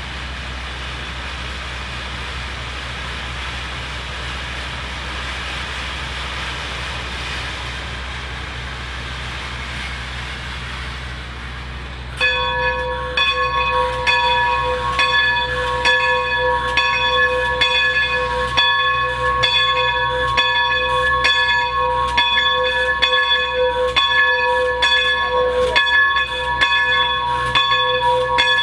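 Steady low rumble of an idling diesel locomotive. About twelve seconds in, the bell of Baldwin 2-8-0 steam locomotive No. 40 starts ringing and keeps ringing in an even rhythm of about two strokes a second, the warning bell rung as the engine moves out.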